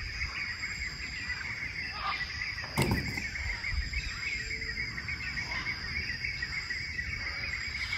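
Birds chirping steadily in the background, with a thin steady high tone above them. A single knock about three seconds in, as a toy is set down in a cardboard box.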